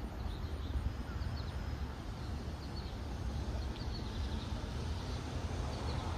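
Trackside outdoor ambience: a steady low rumble with small birds chirping faintly now and then.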